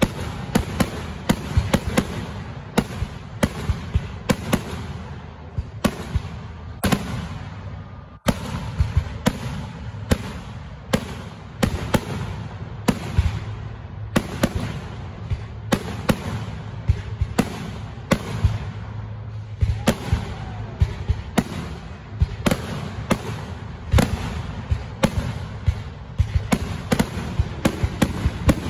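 Fireworks finale barrage: aerial shells bursting in rapid succession, sharp bangs a few times a second over a continuous background din, with a brief lull about eight seconds in.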